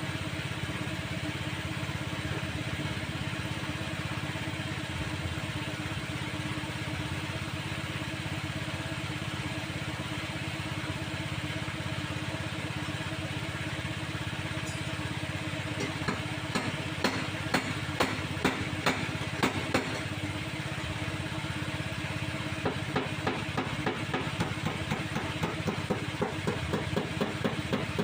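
A steady motor hum throughout, joined about halfway in by hammer blows on sheet metal. First comes a loose run of about eight strikes, then a quicker, even tapping of two to three blows a second near the end, as when a body panel is being beaten into shape.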